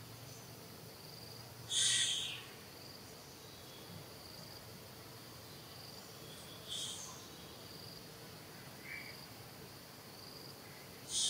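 Insects trilling steadily, with short high tones repeating about once a second. Three short, loud, high-pitched calls come about five seconds apart: one near the start, one in the middle and one at the end, with a fainter one just before the last.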